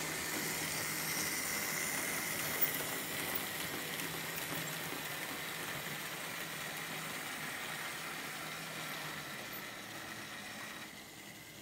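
Märklin H0 model trains running on the layout's track: a steady whir of the small electric motors and the rolling noise of the wagons passing. It fades gradually and drops off near the end.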